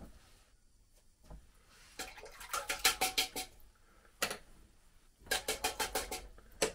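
Rapid sharp taps or knocks, in two quick runs of about six each, with a single knock between them and another near the end.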